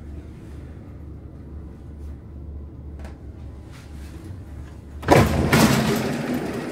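Metro train standing at the platform with a low steady hum, then about five seconds in its passenger doors slide open with a sudden loud noise that trails off over the last second or so.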